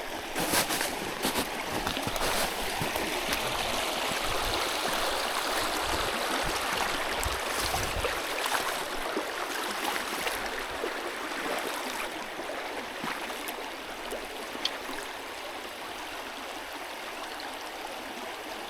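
Small mountain trout stream running over rocks, a steady rush and gurgle of water that softens a little in the second half. A few short knocks come in the first couple of seconds and again around eight seconds in.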